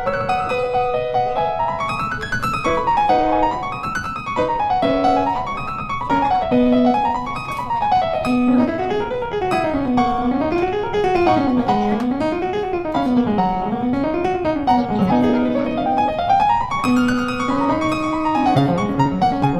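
Background piano music, notes running up and down in quick arpeggios.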